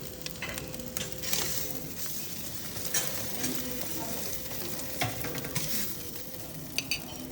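Eggs frying in a pan with a steady sizzle, broken by a few sharp clicks and scrapes of a utensil against the pan.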